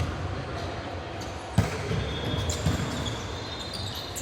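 Basketball bouncing on a gym floor during a game: a sharp bounce at the start and another about a second and a half in, with fainter thuds between.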